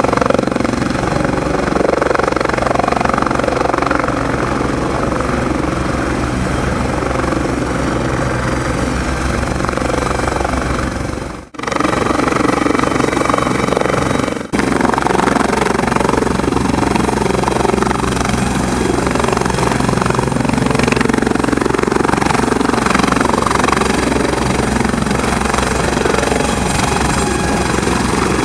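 Bell 430 helicopter's twin turboshaft engines and four-blade main rotor running at speed for lift-off: a steady turbine whine over a fast rotor beat, the helicopter rising into a hover near the end. The sound drops out briefly twice around the middle.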